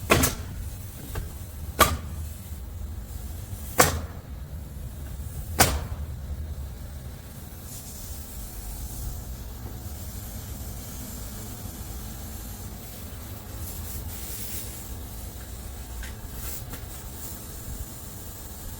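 Four sharp knocks about two seconds apart, then a steady low rumble.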